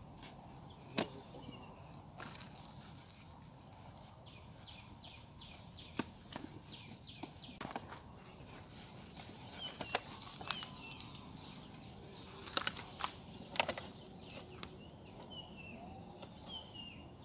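Clear plastic water bottle clicking and crackling as it is handled in leather gloves and a snake hook is worked into its mouth to draw out a trinket snake. The clicks are few and scattered, the loudest about two-thirds of the way through, over a steady high outdoor hiss with a few faint chirps.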